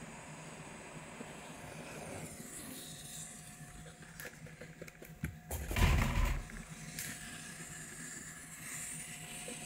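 Hot air rework gun blowing with a steady hiss, with a few small clicks and a brief clatter of handling knocks about six seconds in.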